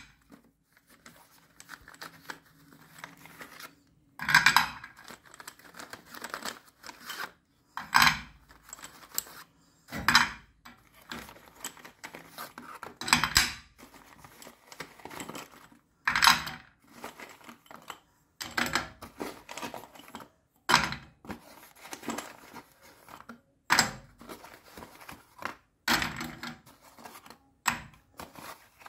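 Sticks of chalk being pulled from a cardboard box and set down on a ceramic plate: cardboard rustling, with a sharp clink or clatter of chalk on the plate every two to three seconds.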